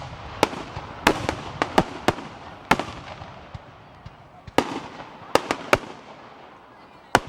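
Fireworks display: about a dozen sharp bangs of bursting shells at irregular intervals, each trailing off in an echo.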